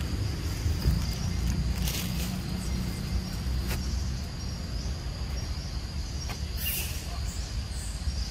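Outdoor ambience: a steady low rumble under a continuous high insect drone, with a few light clicks and a short hissing rustle about two-thirds of the way through.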